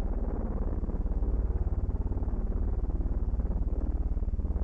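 Aircraft engine droning steadily in flight, a low buzzing with a rapid, even pulse.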